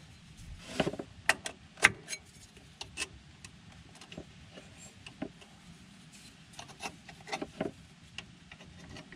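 Scattered light metallic clicks and clinks of hand wrenches and a socket tool working a bolt on engine parts, irregularly spaced, with sharper clicks in the first two seconds and a small cluster about seven and a half seconds in.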